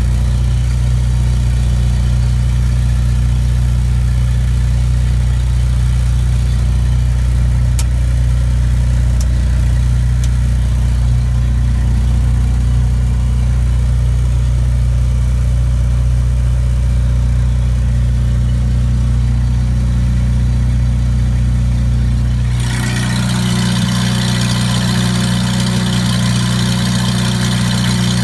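Waukesha engine of a 1953 Kohler generator set running steadily at constant speed, with no exhaust system fitted. About three-quarters of the way through the sound changes abruptly: less low hum and much more clattering and hiss.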